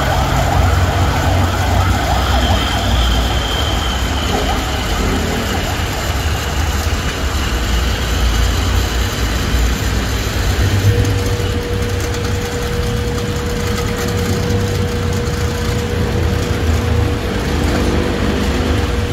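Belt-driven pressure washer plunger pump and its electric motor running steadily under test with freshly replaced O-rings, a loud low hum. About eleven seconds in a steady whine joins it.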